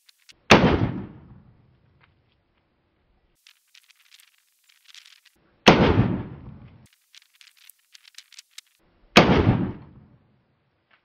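Three .45 ACP pistol shots from a homemade pistol with a rifled 1144 steel barrel, fired slowly: just after the start, about five seconds later, and three and a half seconds after that. Each report is sharp and trails off over about a second.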